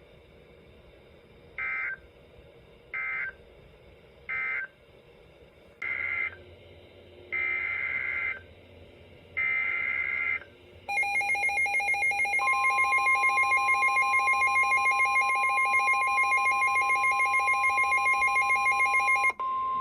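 Emergency Alert System tones on NOAA Weather Radio: six short buzzing digital SAME data bursts, in a set of three brief ones and then three longer ones. Then a rapidly pulsing alarm tone sounds, joined a little later by a steady weather-radio alert tone near 1 kHz that outlasts the pulsing.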